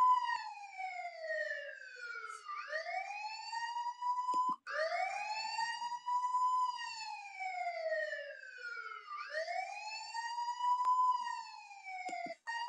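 Police siren wailing in slow rises and falls of pitch, each sweep taking a couple of seconds. It breaks off abruptly and restarts about four and a half seconds in and again near the end.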